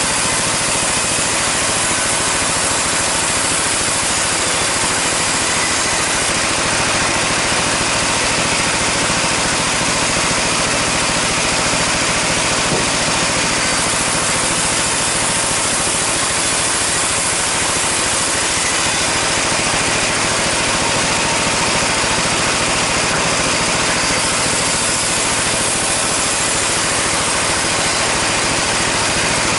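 Sawmill band saw running and cutting breadfruit (sukun) wood: a loud, unbroken sawing noise over the steady hum of the machine's drive.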